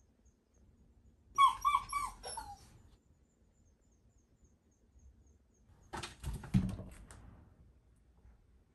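Shiba Inu giving an anxious high nasal whine, three short notes and a falling one. About six seconds in, a run of sharp clicks and a knock as a door's lever handle is turned and the door opens.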